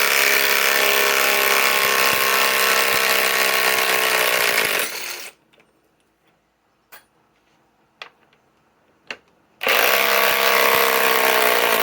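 Cordless drill running at full speed for about five seconds, pitch sagging as it spins down. A few light clicks and knocks follow, then it runs again near the end.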